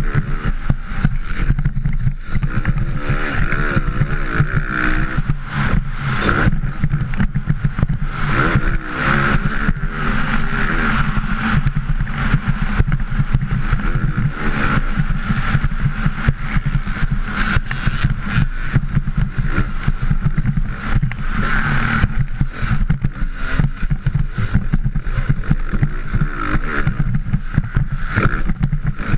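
Motocross bike engine revving, its pitch rising and falling as the rider works the throttle, heard through a helmet-mounted action camera with heavy wind buffeting on the microphone.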